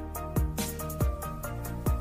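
Electronic background music with a kick drum and short synth notes.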